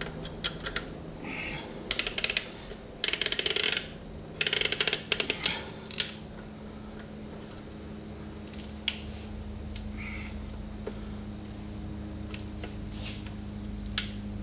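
Metal clicking and rattling from a piston ring compressor being worked around a piston, in several quick bursts in the first half, then only an occasional click.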